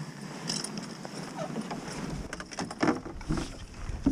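A canoe being paddled: a wooden paddle knocks and splashes against the canoe's hull in a run of short knocks in the second half. Wind rumbles on the microphone over it.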